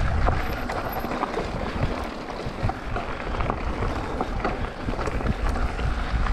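Wind buffeting a helmet-mounted camera's microphone as a mountain bike descends a loose rocky trail, with a steady low rumble and many small clicks and rattles from the tyres and bike over stones.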